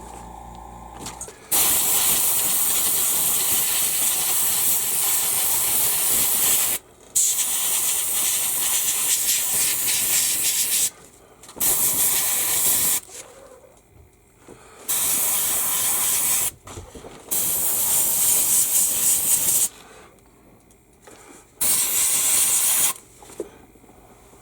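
Airbrush spraying model paint from a compressor: a loud hiss of air that starts and stops six times as the trigger is pressed and released. The first two bursts are the longest, the rest short.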